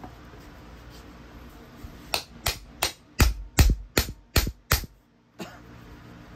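Hammer blows on a metal tool held against the rear cover of a Hitachi S12-88 starter motor, seating the cover with its new bushing. About two seconds in come about eight sharp metal-on-metal strikes, roughly three a second, followed by one lighter knock.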